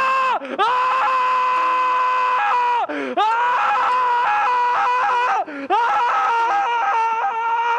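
A person's voice wailing long, high, held notes: three drawn-out cries, each sliding up at the start and dropping away at the end, then a quavering, stuttering cry near the end.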